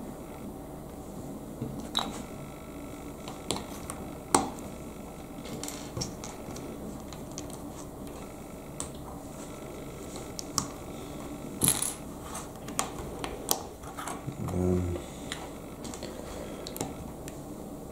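LEGO bricks and plates clicking as they are pressed together and handled on a wooden table: scattered sharp plastic clicks, the loudest a short clatter about twelve seconds in.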